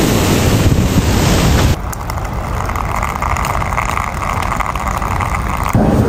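Hurricane-force wind and driving rain buffeting the microphone. About two seconds in it cuts abruptly to a quieter, steady noise, and loud noise returns just before the end.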